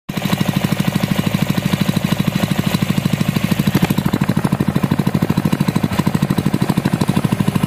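Honda GX160-type single-cylinder stationary engine running steadily at a low, even speed, an even putter of about a dozen firing beats a second.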